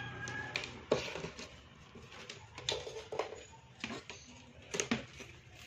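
Scattered light clicks and knocks as a power cord and its plug are handled on the workbench to plug the speaker into the mains, over a faint low hum.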